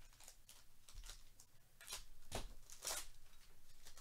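Foil wrapper of a Topps baseball card pack crinkling and tearing open by hand, in a series of short crackly rustles, loudest about two and a half and three seconds in.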